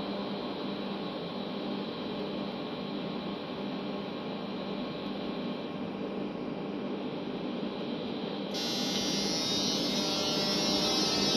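ALe 642 electric railcar humming steadily as it pulls out of the station. About eight and a half seconds in, it turns suddenly louder with a higher whine added.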